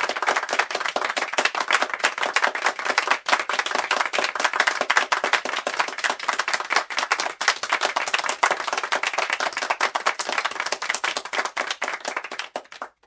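Crowd clapping: a dense, continuous patter of many hands, cutting off suddenly near the end.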